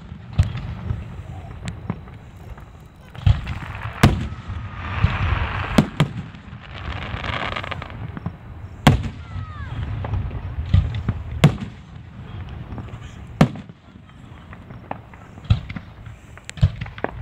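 Aerial firework shells bursting overhead, a sharp bang every one to three seconds, with a denser stretch of noise between about five and eight seconds in.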